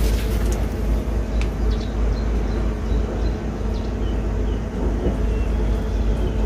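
Steady low rumble of an idling truck diesel engine, with a faint steady hum and a few light clicks.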